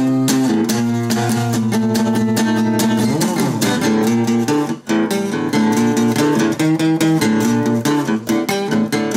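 Instrumental passage of a song: strummed guitar chords in a steady rhythm, with a sliding pitch sweep about three seconds in and a brief break just before five seconds.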